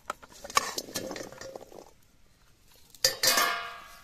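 Light clinks and knocks of metal dishes and utensils, then about three seconds in a loud clang from a metal cooking pan that rings on and fades away.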